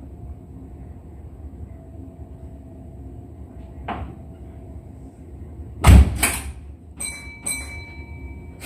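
Sliding passenger doors of a Kintetsu 1233-series train car shutting with a loud thud about six seconds in, over the low hum of the standing car. Two sharp clicks with a brief ringing follow about a second later.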